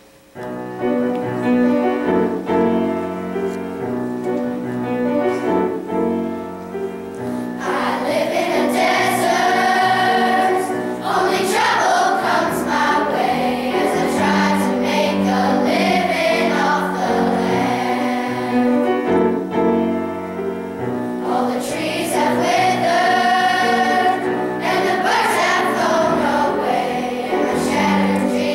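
Youth choir of middle-school boys and girls singing with piano accompaniment. The piano plays an introduction alone for about the first seven seconds, then the choir comes in and sings on over it.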